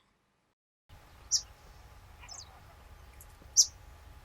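A few short, high bird chirps over a faint steady outdoor background that comes in about a second in; the loudest chirp comes near the end.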